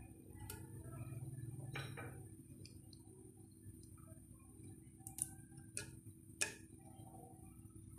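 Green cardamom pods cracked open by hand and dropped into a steel pan of water: a few faint, sharp clicks and ticks, the clearest about five and six and a half seconds in, over a low steady hum.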